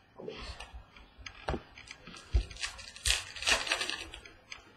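Trading cards being handled and set down on a table: a string of light taps and clicks, one duller knock, and a louder papery scraping rustle about three seconds in.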